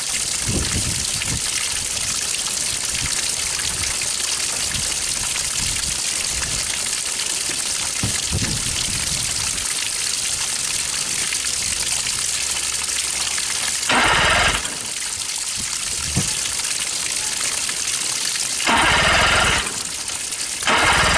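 Water rushing steadily as a hose feeds it through a 50 hp Mercury outboard for a test run. About 14 seconds in, and twice more near the end, short loud bursts as the engine is cranked to start.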